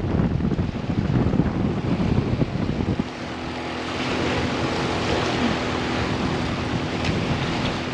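Wind buffeting the microphone with a heavy low rumble for about three seconds, then the rumble eases into a steady wash of water and waves with a faint, steady motor hum underneath.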